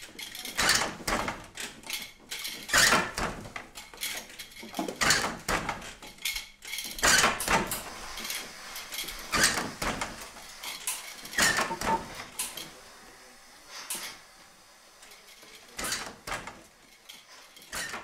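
Old wooden loom working: wooden clacks and knocks, often in pairs, about every two seconds, becoming quieter and sparser in the last few seconds.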